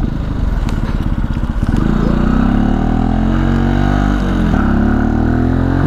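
Motorcycle engine pulling away from low revs, its pitch climbing steadily, then dipping sharply about four seconds in as the rider changes up a gear, before climbing again.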